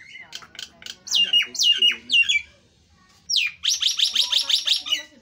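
Common myna (jalak nias) singing loudly: a few sharp chips, then four whistles that fall in pitch, and after a short pause a fast run of about ten loud notes.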